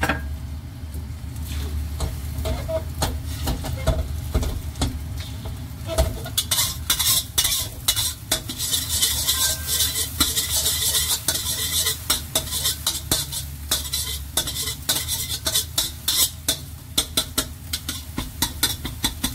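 Egg frying and sizzling in hot oil in a stainless-steel wok, with a metal spatula scraping and clicking against the pan as the egg is broken up and scrambled. The sizzle grows louder and the spatula strokes come quicker from about six seconds in.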